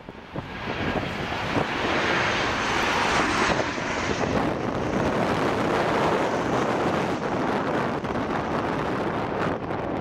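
Boeing 737-700 airliner's CFM56-7B jet engines on final approach, passing low overhead with landing gear down: a loud, steady rushing jet noise that swells over the first couple of seconds, with a faint high whine falling in pitch a few seconds in. Wind rumbles on the microphone underneath.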